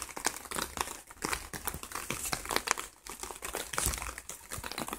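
Irregular crackling and rustling with low rumbles now and then: handling and wind noise on a handheld recording microphone.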